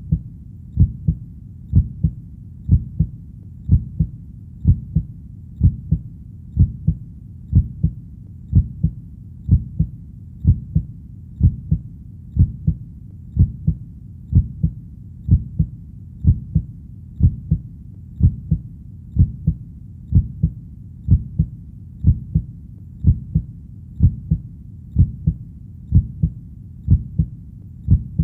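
Recorded human heartbeat beating steadily at about one beat a second, each beat a pair of low thumps (lub-dub).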